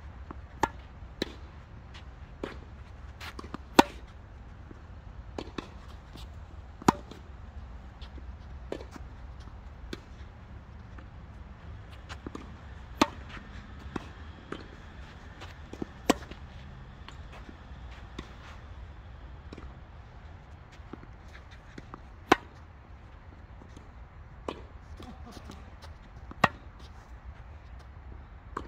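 Tennis balls struck by rackets and bouncing during singles rallies: sharp, irregular pops every second or so, with a pause of several seconds partway through. A low steady rumble runs underneath.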